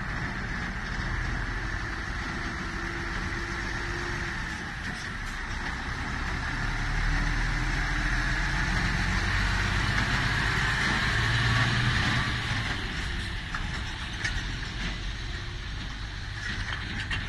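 Heavy dump truck towing a dump trailer drives slowly past, its diesel engine running steadily. It grows louder as the truck comes close, about seven seconds in, then eases off as it pulls away.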